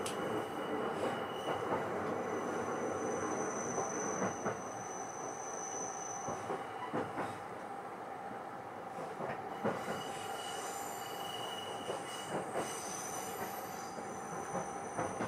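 Running noise inside the bilevel Green car (SaRo E232) of an E233-3000 series electric train at speed: a steady rumble of wheels on rail, with high-pitched wheel squeal coming and going. Occasional short clacks sound as the wheels cross rail joints.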